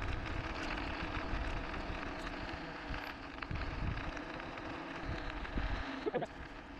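Wind buffeting the microphone and tyre rumble on asphalt while riding an e-bike, a steady uneven rushing.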